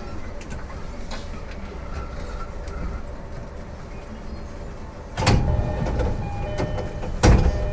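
Quiet running rumble of an E231-series commuter train at the end of its stop at a station, then its sliding doors opening: a loud sudden burst about five seconds in and a second, louder one near the end.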